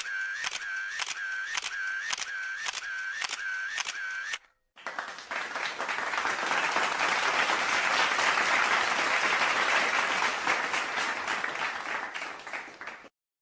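Camera shutter sound effect clicking repeatedly, about twice a second for some four seconds. After a short gap comes a round of applause lasting about eight seconds that fades out near the end.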